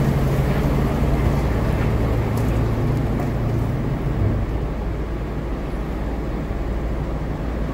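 Jeep Wrangler's V6 engine running at low speed, heard from inside the cab as a steady low drone; the engine note eases and drops a little about four seconds in.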